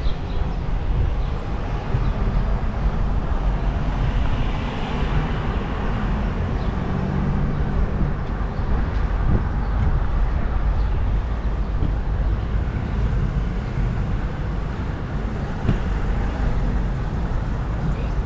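Steady wind rumble on the microphone and rolling noise from a moving bicycle, a fluttering low roar with no distinct events.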